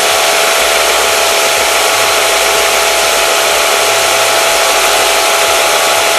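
Combination belt and disc sander with a 1 hp motor running steadily: a loud, even whir with a few held tones over a hiss.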